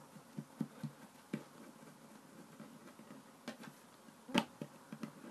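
Soft pats and taps of hands pressing and shaping a slab of play dough on a wooden tabletop, with one sharper knock late on.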